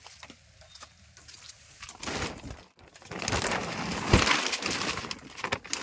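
Plastic tarpaulin rustling and crinkling close to the microphone, with a dull thump about four seconds in.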